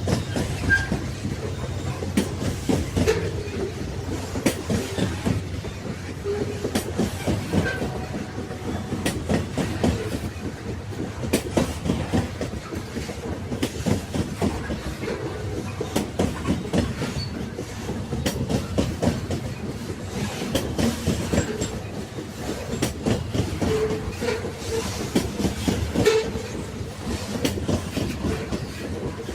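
Railway carriages running along the track: a continuous rumble with the clickety-clack of wheels over rail joints, and now and then a brief metallic squeak.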